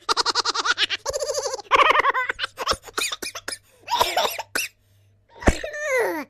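A string of comic laugh sound effects: rapid, pulsing ha-ha laughter in the first couple of seconds, then short choppy bursts and clicks, and a pitch that slides downward near the end.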